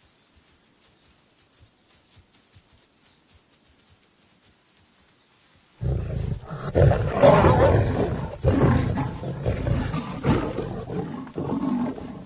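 Lions fighting, roaring loudly; the fight breaks out suddenly about six seconds in after a quiet stretch.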